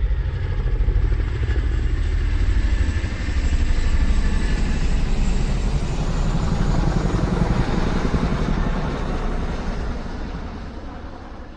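A loud vehicle rumbling with a rapid low pulsing, fading away over the last few seconds.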